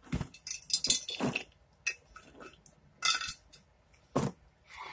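Homemade slime being squeezed and stretched between the fingers, giving a string of irregular sticky clicks and crackles with short pauses between them.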